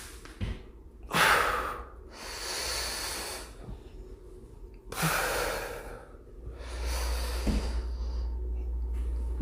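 A person breathing hard during an exercise: two sharp exhales, about a second in and again at five seconds, each followed by a longer, softer inhale.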